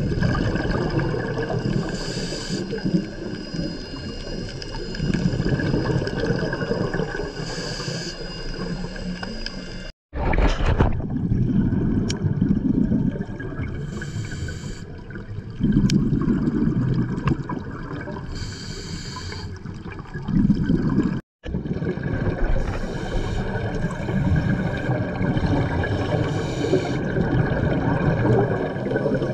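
Scuba regulator breathing underwater: a short hiss on each inhale alternates every few seconds with a longer burst of bubbling exhaust on each exhale, over a steady wash of water noise. The sound cuts out sharply twice.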